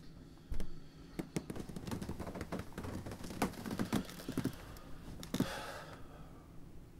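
Bedding rustling and shuffling as a person stirs and sits up in bed, with a dull thump about half a second in.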